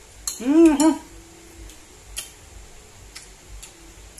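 A man's short rising-and-falling "mmm" of enjoyment while chewing, within the first second, then a few scattered light clicks of a metal spoon against a bowl.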